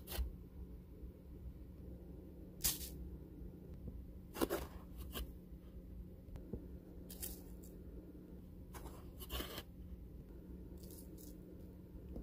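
Several brief, irregularly spaced crackling and rustling noises over a faint, steady low hum.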